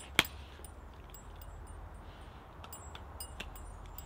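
Metal tags on a dog's collar clinking in light, irregular ticks as the dog noses around in loose soil, with one sharp knock about a quarter of a second in.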